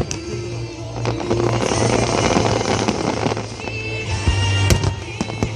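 Fireworks bursting and crackling over loud music, with a sharp bang near the end.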